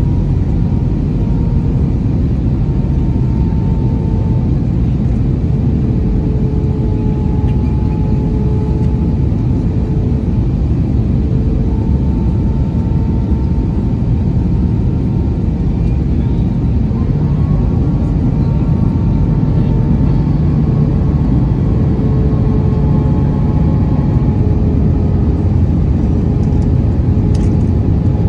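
Steady cabin noise inside an Airbus A320 coming in to land: a loud low rumble of airflow and engines, with faint hums that drift slightly in pitch.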